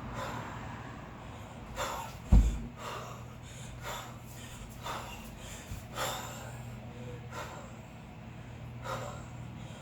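Hard, sharp breaths about once a second from a lifter working through a double-kettlebell long cycle with two 16 kg bells, with one heavy thump about two seconds in, at the pace of one rep every eight seconds or so.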